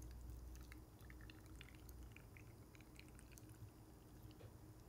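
Faint trickling and splashing of pickling brine poured in a thin stream from a glass jug into a glass jar of cut radish and cucumber.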